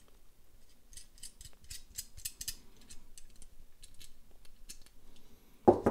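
Small irregular metal clicks and ticks as 1/4-20 steel nuts are spun by hand onto machine screws through a pipe flange and metal bracket. A short mouth sound comes just before the end.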